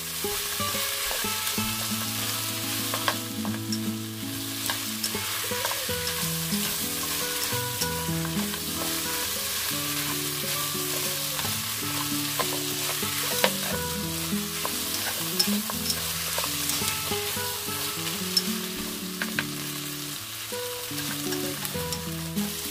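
Goat ribs with lemongrass, ginger and shallots sizzling in hot oil in a pot as they are stirred with wooden chopsticks: a steady sizzle with occasional clicks of the chopsticks against the pot.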